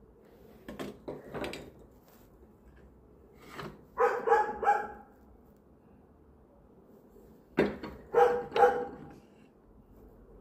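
A dog barking: a few short barks about four seconds in, then another group of barks about three and a half seconds later.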